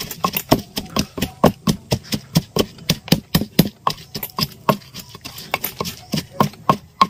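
Wooden pestle pounding chilies in a wooden mortar: a rapid, even run of dull knocks, about four a second.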